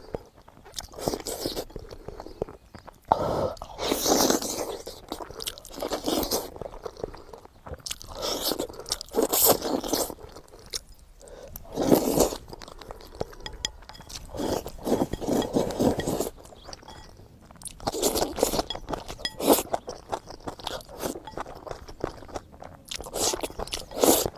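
A person chewing and biting food close to the microphone, with crunchy bites coming in bursts every second or two.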